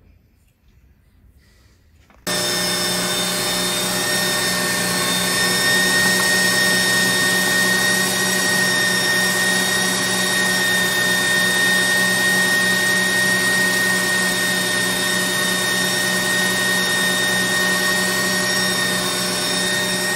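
KitchenAid stand mixer motor driving the Gourmet Pasta Press attachment, switched on abruptly about two seconds in and then running steadily with a high whine as the press extrudes bucatini.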